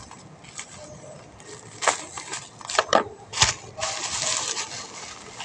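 Plastic parcel wrapping being torn open and crumpled by hand: a few sharp crackles, then a longer, denser rustle about four seconds in.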